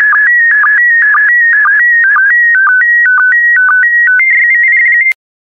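Slow-scan TV (SSTV) PD120 image signal: a loud warbling tone carrying the picture's scan lines, broken about twice a second by short low sync pulses. A little after four seconds in it changes to a quick high trill, then cuts off suddenly about five seconds in as the image transmission ends.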